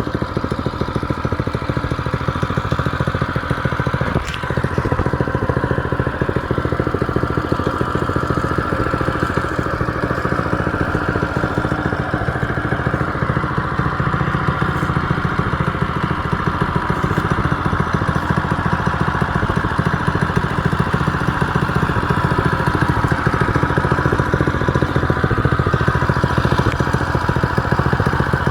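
Coleman CT200U-EX mini bike's small single-cylinder engine running at a steady idle, with one sharp click about four seconds in.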